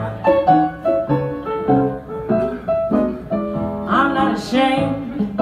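Live jazz band playing the instrumental lead-in to a song: an archtop guitar picks chords and single notes over a walking upright bass line.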